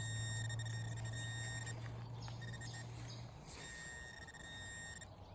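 Metal detector giving a steady high-pitched target tone in several stretches with short breaks, as it is swept over a target the detectorists take for a bottle top. A low hum sounds underneath and stops a little past halfway.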